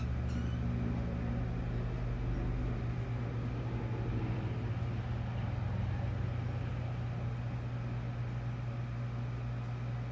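A steady low hum that runs unchanged, with no clear bird calls. A faint short chirp comes right at the start.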